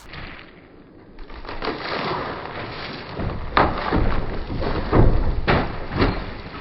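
Wooden shed being broken apart: four heavy knocks and cracks of timber over a rough, scraping rumble, the loudest knock about five seconds in.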